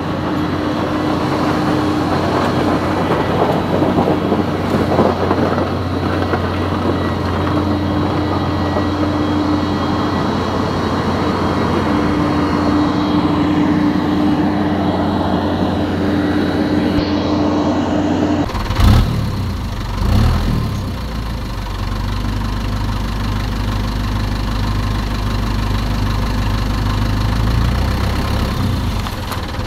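Engine sound of RC toy construction vehicles: a steady low hum with a higher tone that cuts in and out as the toy wheel loader drives. About two-thirds of the way through it changes abruptly to a deeper rumble, with a couple of thumps.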